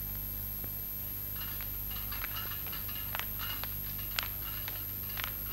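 Quiet room tone with a steady low hum. From about a second and a half in there are faint, irregular light clicks and short high chirps.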